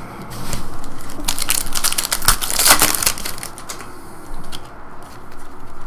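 Trading cards being handled with a crinkling, crackling rustle. It is loudest about two to three seconds in, then drops to lighter, scattered rustles.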